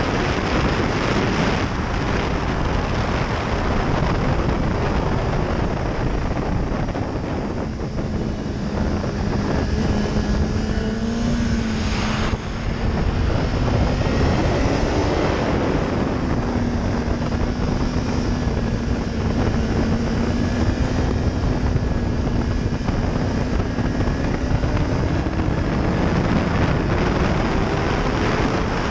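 BMW S1000RR's inline-four engine running at speed under heavy wind rush. The engine note falls at first, holds steady through much of the middle, then rises again near the end as it pulls harder.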